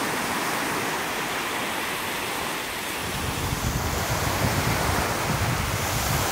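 Small waves breaking and washing up onto a sandy beach: a steady wash of surf, with a low, gusting wind rumble on the microphone joining about three seconds in.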